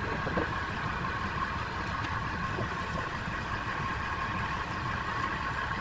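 Wood lathe running steadily, its motor giving a continuous even hum.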